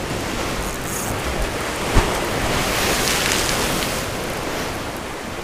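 Sea surf washing onto the beach, swelling and easing, with some wind on the microphone; a single short knock about two seconds in.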